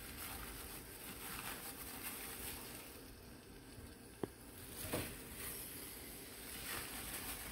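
Chicken breasts sizzling faintly in hot oil in a nonstick skillet. There is a sharp click a little past four seconds in and a soft knock about a second later.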